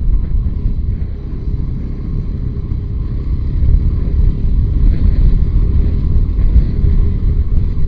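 Motorcycle running at speed, its engine mixed with heavy wind rumble on the microphone, steady throughout.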